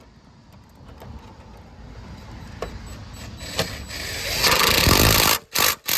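Cordless impact wrench driving bolts in. It builds to a loud, rapid hammering rattle about four to five seconds in, then gives two short bursts near the end.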